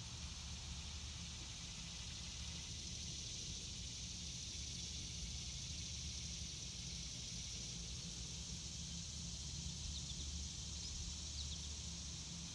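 Quiet outdoor garden ambience: a steady high hiss with a low rumble underneath, and a few faint short chirps about ten seconds in.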